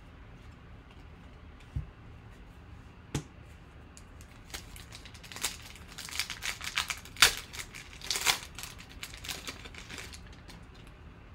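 A trading-card pack's foil wrapper being torn open and crinkled while cards are handled, making a scatter of sharp ticks and crackles that grow dense in the middle stretch and thin out near the end.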